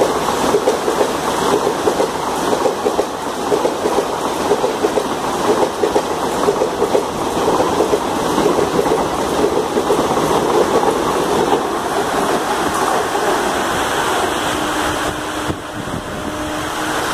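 Express train's ICF passenger coaches rushing past at high speed, their steel wheels clattering over the rail joints in a quick repeating rhythm.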